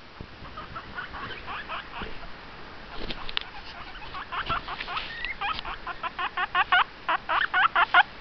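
Guinea pig squeaking in a series of short, repeated calls, soft at first and then a fast run of about four or five squeaks a second that gets louder toward the end.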